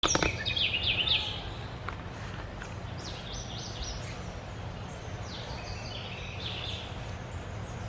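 Songbird calling in three quick runs of sharp, high whistled notes, the first and loudest right at the start, over a steady low background rumble.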